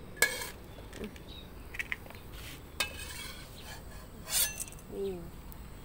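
Metal spatula scraping and striking an aluminium wok, with three sharp ringing clinks and a few lighter clicks and scrapes between them.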